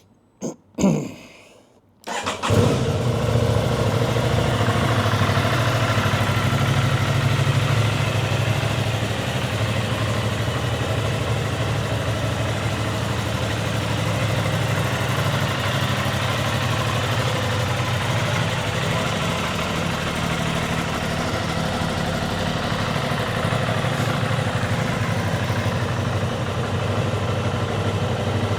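Aprilia Tuono 660 Factory's parallel-twin engine on its original exhaust being started: a short sound about a second in, then the engine catches about two seconds in and idles steadily.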